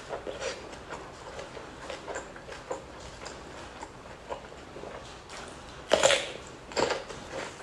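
Close-up mukbang eating sounds: wet chewing of rice and fish skin with many small mouth clicks, then a loud crisp crunch about six seconds in and another just under a second later as a whole fresh cucumber is bitten and chewed.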